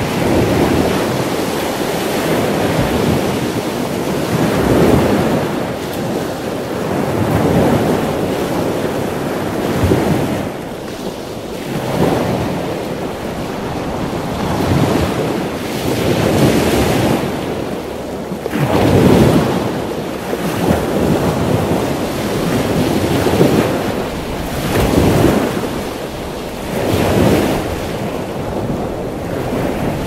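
Small waves washing on the shore and wind on the microphone: a loud, steady rush of noise that swells and eases every few seconds.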